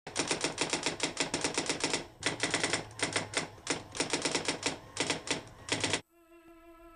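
Typewriter keys clacking in quick runs separated by short pauses, stopping abruptly about six seconds in. A faint held string note then begins.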